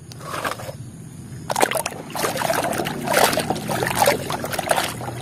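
Water sloshing and splashing in a tub of foamy, muddy water as a hand swishes plastic toys around to wash them. The splashes come in irregular bursts and get busier about a second and a half in.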